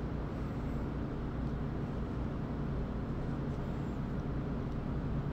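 Steady low machine hum of kitchen equipment, even and unchanging throughout.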